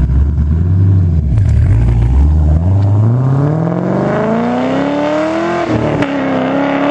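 2013 Camaro SS's 6.2-litre LS3 V8, with a GT-11 cam, long-tube headers, X-pipe and Flowmaster Pro HP mufflers, pulling away under hard acceleration. A low rumble for about two seconds gives way to the engine note climbing steadily. It dips slightly about five and a half seconds in, then holds.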